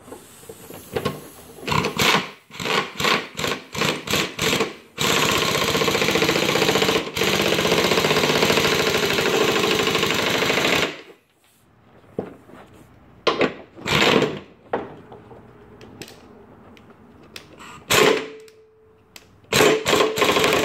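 Impact wrench with a 9/16 socket tightening a lawnmower blade bolt. It fires in several short bursts, then hammers continuously for about six seconds, then gives a few more short bursts near the end.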